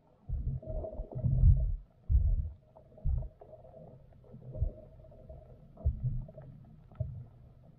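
Muffled low thumps and rumbles heard through a submerged camera, coming in irregular bursts, the loudest in the first two and a half seconds and weaker ones after.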